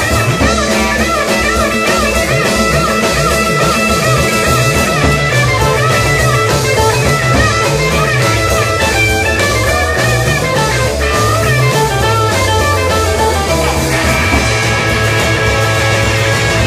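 Live rhythm-and-blues rock band playing an instrumental break: a lead electric guitar plays bending phrases over bass and drums.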